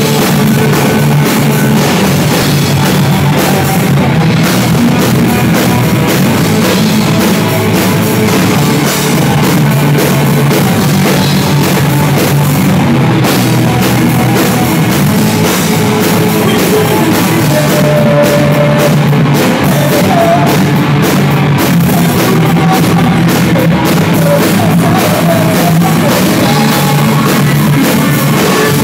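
A rock band playing live: electric guitar, electric bass and drum kit, loud and continuous.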